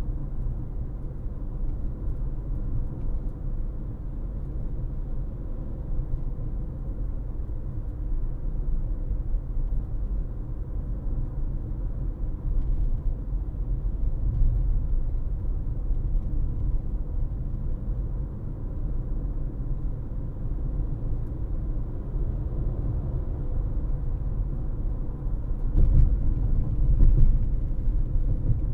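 A car driving, with a steady low rumble of road and engine noise. It gets louder for a couple of seconds near the end, with a few clicks or knocks.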